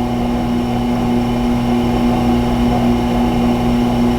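Tormek T-8 sharpening machine's electric motor running with a steady hum.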